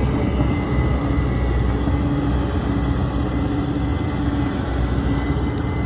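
Volvo excavator's diesel engine running steadily, a constant low rumble with a steady hum over it.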